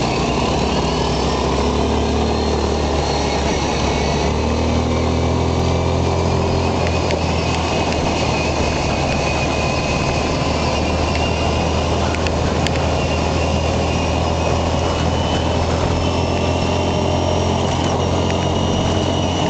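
Quad bike (ATV) engine running at a steady pitch while riding along a gravelly dirt track, mixed with a continuous rushing noise of the ride.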